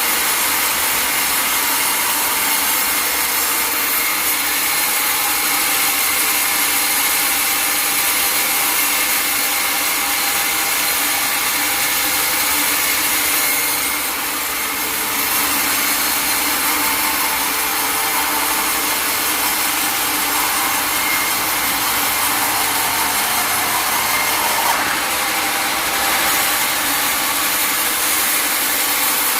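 Sawmill saw cutting through a log: a steady, loud sawing noise with a high whine, easing briefly about halfway through before resuming.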